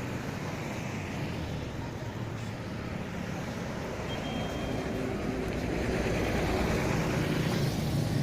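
Roadside traffic noise: a vehicle's engine and tyres, getting louder from about halfway through.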